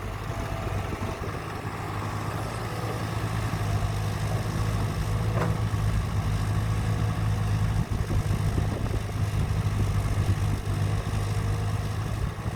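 Heavy vehicle engine running steadily with a low hum, growing louder over the first few seconds and then holding, with a brief click about halfway through.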